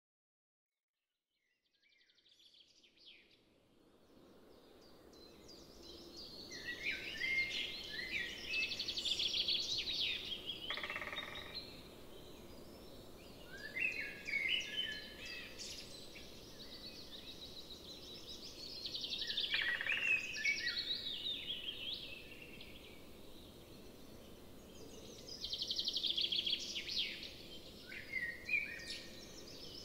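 Birdsong: phrases of rapid, high-pitched chirps and trills that come and go every few seconds over faint steady outdoor background noise. It fades in over the first few seconds.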